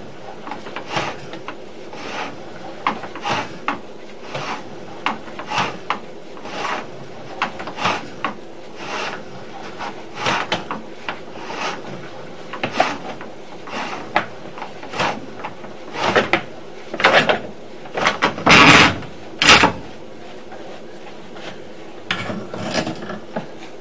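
Sewer inspection camera's push rod being pulled back out of the drain pipe, rubbing and scraping in short repeated strokes, roughly one or two a second. The strokes grow louder towards the end.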